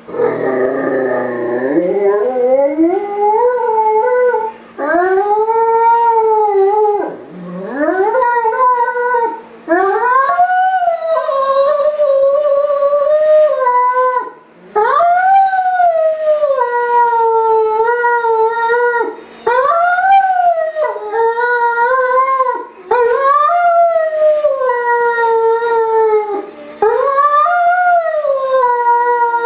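A Great Dane howling over and over: about nine long howls, each rising and then sliding down in pitch, with short breaks between them. It is howling from being left alone while its owner is away.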